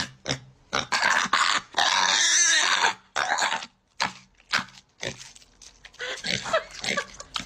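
A mini pig eating watermelon: wet, crunchy bites and smacking chews in short irregular bursts, with a longer noisy stretch of about two seconds a second in.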